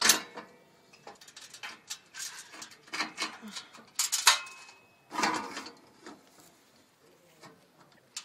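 Steel parts of a Mad Dog cement mixer's stand being handled and fitted: irregular metallic clanks and knocks with a chain clinking, one clank near four seconds in ringing on briefly.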